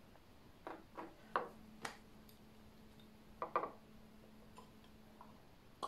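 A handful of soft clicks and light taps as a pipette is worked against the rim of a glass test tube while water is squeezed in, in two small clusters, with a faint steady hum beneath them through the middle.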